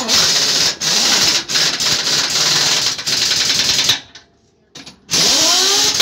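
Pneumatic impact wrench hammering in two long bursts: one through the first four seconds, then after a short pause a second that starts with a rising whine as it spins up about five seconds in.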